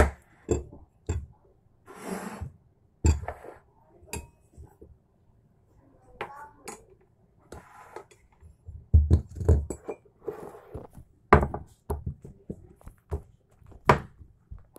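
Scattered knocks and clicks of a bowl and boiled chestnuts being handled on a kitchen counter while the chestnuts are peeled by hand, with a couple of short scraping sounds.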